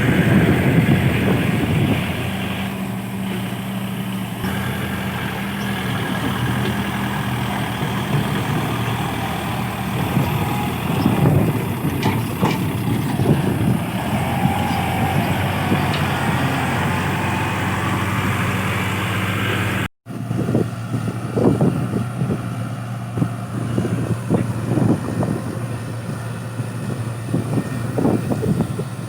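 Excavator's diesel engine running steadily. After a brief cut about two-thirds through, irregular knocks and clanks sound over the engine.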